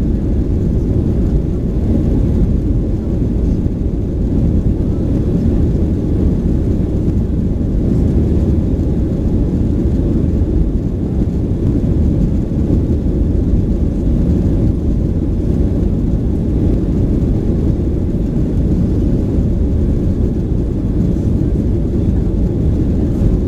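Steady low rumble inside the passenger cabin of a Boeing 737-900: its CFM56 jet engines and airflow, holding an even level with no change in pitch.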